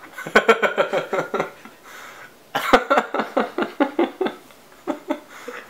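A young man laughing hard in two bouts of quick breathy ha-ha pulses, the first about a second long and the second, longer one starting about halfway through.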